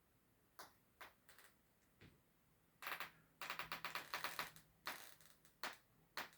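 Paintbrush dabbing and stroking on a stretched canvas: a few separate taps, then a dense run of quick dabs lasting about a second and a half in the middle, then a few more single strokes.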